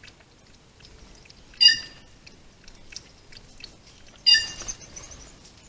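Jaguarundi lapping water from a basin: faint, irregular small wet clicks. Two short, harsh bird calls stand out over it, about a second and a half in and again about four seconds in.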